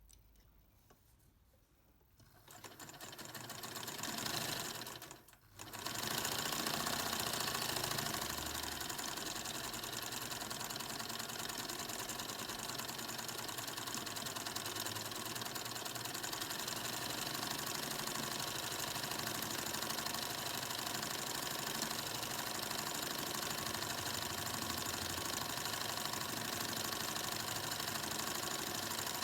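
Singer 99 sewing machine running and stitching. It starts up about two seconds in, stops briefly, then runs on steadily.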